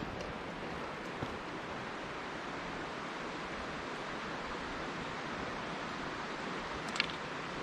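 Mountain stream rushing steadily over rocks, with a single sharp click about seven seconds in.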